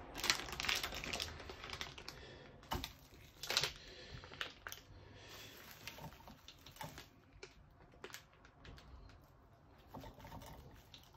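Rapid, irregular clicking and crackling, densest and loudest over the first four seconds, then thinning to sparse, softer clicks.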